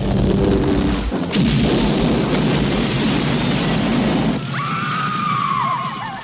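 Film sound effects of an explosion: a low rumbling blast with shattering and crashing debris lasting about four seconds. Then a high wavering cry that slowly falls in pitch.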